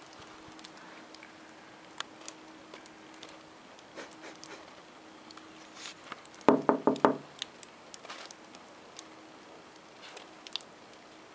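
Small dog digging and nosing in deep snow: scattered soft crunches and ticks. About six and a half seconds in there is a quick run of about five loud knocks.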